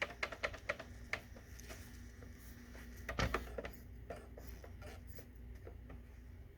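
Optical disc drive's tray mechanism clicking: a quick run of small clicks, then a short rattling clunk about three seconds in, over a faint steady hum. The tray does not open, which the owner suspects comes from a bad tray motor rather than the belt.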